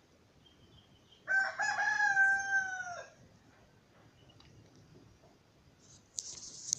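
A rooster crowing once: a single drawn-out crow of under two seconds, held level and then dropping in pitch at the end. Near the end, a short, high-pitched rustle.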